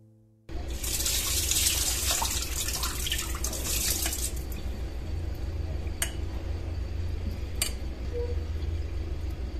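Water poured from a glass bowl through a steel mesh strainer into a sink, rushing and splashing for about four seconds as the brinjals are drained. It then settles to a quieter trickle with two light clicks, over a low steady hum.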